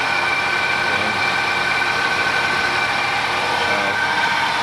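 1994 Ford F-150's fuel-injected 5.0-litre (302) V8 idling steadily while still cold, heard close with the hood open, with a steady high-pitched whine over the engine noise.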